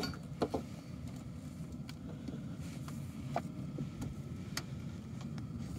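Scattered light clicks and rustles of a power cable and plastic floor trim being handled and pressed into place, over a steady low background hum.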